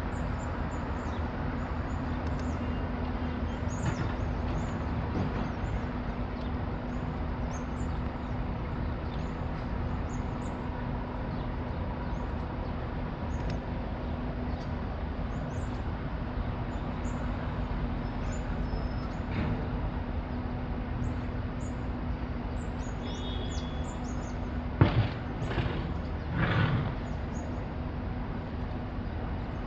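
Electric suburban train standing at a platform, its equipment giving a steady low hum, while small birds chirp throughout. About 25 seconds in there is a sharp knock, then a couple of shorter clunks.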